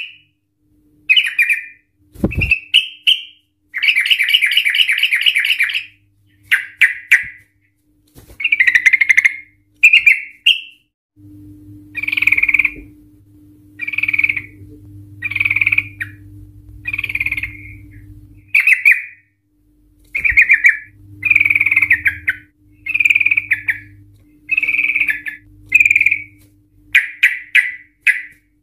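Yellow-vented bulbul singing: short bright phrases repeated every second or two, with one longer rapid trill of about two seconds near the start. A single low thump about two seconds in.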